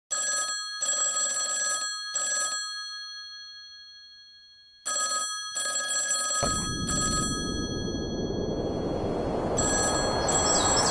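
Telephone bell ringing in short bursts. The ringing dies away, then starts again about five seconds in. From about six seconds a rushing noise swells in and grows louder, with the bell still ringing faintly over it.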